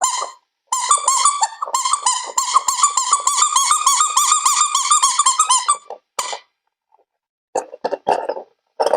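A rapid run of high-pitched squeaks for about five seconds, then a few short squeaky bursts near the end.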